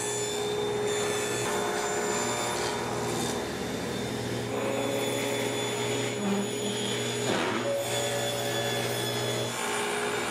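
Shop machinery motor running with a steady hum and thin high whine, like a vacuum-type dust extractor; its low hum cuts off near the end.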